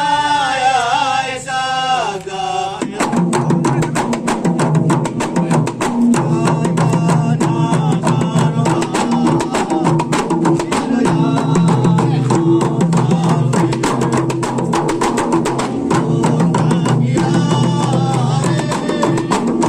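Hadrah music: a man's voice chanting alone with a wavering melody, then about three seconds in the rebana frame drums come in together with fast, dense beats that carry on to the end.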